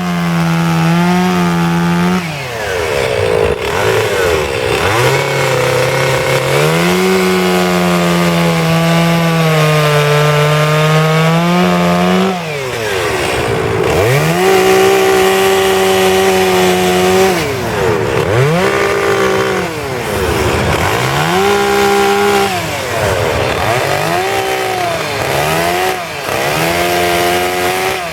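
Petrol two-stroke chainsaw cutting wood. It is held at high revs for stretches of several seconds in the first half, then revved in quicker bursts, the engine note dropping and climbing again every second or two as the throttle is released and reopened.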